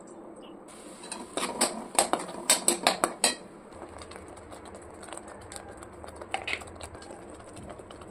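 A steel spoon knocks sharply against a steel vessel about ten times in quick succession, then stirs and scrapes quietly through a thick masala paste in a steel kadhai. A low steady hum comes in under the stirring about halfway through.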